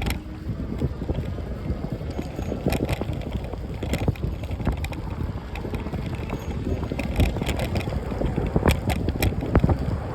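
Wind buffeting the microphone while riding a bicycle: a steady low rumble with scattered rattles and clicks.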